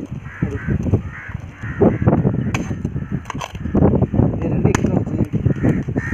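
Hammer striking a chisel that is cutting through the thin tinplate of a tin can set on a stone, giving several sharp, irregular metallic knocks.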